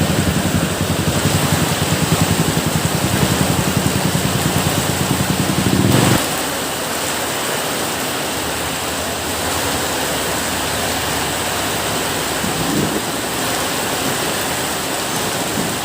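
Steady heavy rain. For the first six seconds a low, rapidly pulsing hum runs under it, then cuts off suddenly, leaving only the rain.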